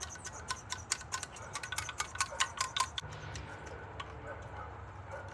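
Rapid, irregular small clicks from a McCulloch two-stroke chainsaw being worked by hand to draw fuel up into its carburetor. The clicks thin out after about three seconds.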